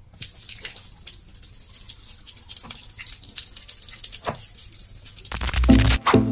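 Water splashing and pouring from a homemade hand-worked PVC-pipe water pump. Near the end a loud low rush sets in, and plucked-string music begins.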